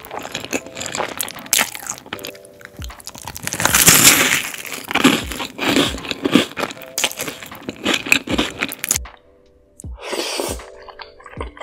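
Close-miked crunching and chewing of toasted garlic bread, a dense run of crisp crackles loudest about four seconds in. The crunching stops abruptly near the end.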